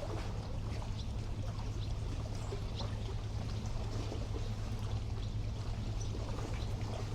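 Calm sea water lapping and trickling at the shore of a bay, a steady low wash with scattered short high ticks.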